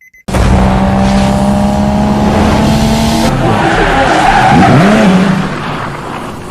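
Loud racing-car sound of an engine running with tyre squeal, cutting in abruptly and fading out near the end.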